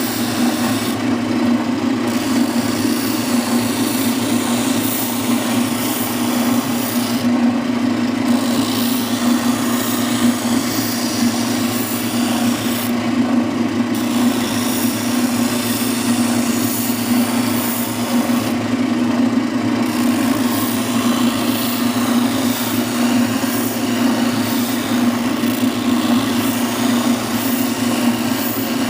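Oscillating spindle sander running steadily while a wooden panel's edge is sanded against the drum: a constant motor hum under the hiss of sandpaper on wood. The highest part of the hiss drops out briefly four times, about six seconds apart.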